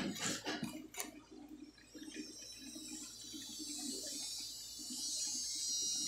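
A few knocks and handling clicks, then a soldering iron working on a circuit board: solder and flux sizzling in a steady hiss that builds from about two seconds in.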